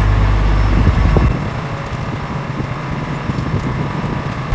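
Fishing boat's engine running with a steady low hum under wind and sea noise; the engine hum drops away about a second in, leaving mostly wind and water noise.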